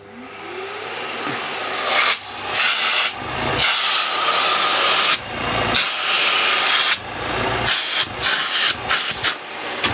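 AEG Ultraone bagged cylinder vacuum cleaner (750-watt motor) switched on with a click, its motor spinning up with a rising whine. Its exhaust air then rushes across the microphone in uneven gusts.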